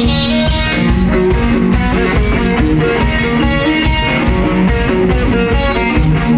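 Live rock band starting a song: a loud, amplified Stratocaster-style electric guitar plays a steady rhythmic figure over bass and a low beat.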